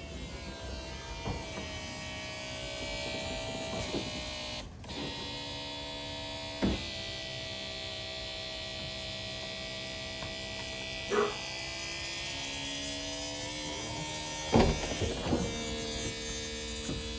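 Mercedes SLK55 R171 Vario hard-top's hydraulic pump whirring as the roof is raised, its pitch shifting a few times as the roof stages move. Several clunks from the roof mechanism are heard, the loudest near the end.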